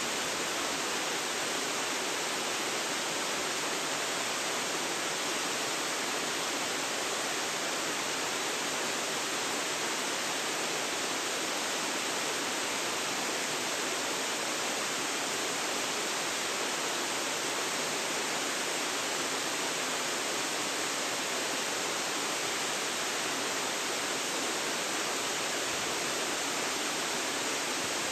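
Waterfall: falling water making a steady, even rush, with most of its sound in the middle and upper range and no change over the whole stretch.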